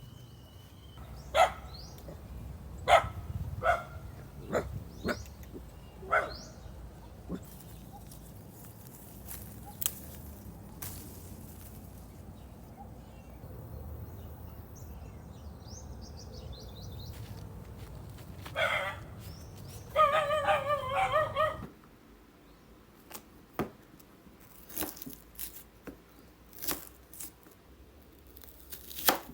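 A dog barking: several short barks in the first few seconds, then a quicker string of barks about twenty seconds in. Scattered sharp knocks follow near the end.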